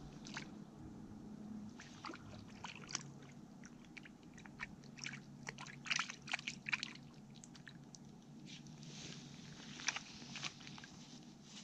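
Close handling noises at the water's edge: an irregular run of sharp crackles, clicks and light sloshes, thickest about five to seven seconds in.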